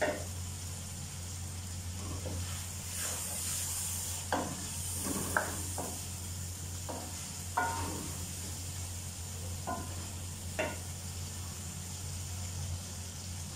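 Tomato masala sizzling in an aluminium karahi while a wooden spoon scrapes and knocks against the pan in about eight separate strokes, a few with a short metallic ring; the stirring stops near the end and only the sizzle goes on.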